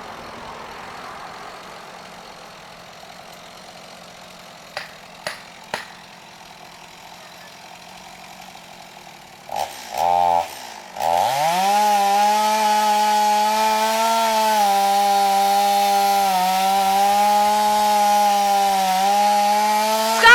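Stihl two-stroke chainsaw, faint at first with a few light clicks about five seconds in, then blipped briefly and held at full throttle with a steady high whine from about eleven seconds, cutting through the trunk of a pine tree being felled. Right at the end the pitch falls sharply as the throttle is released.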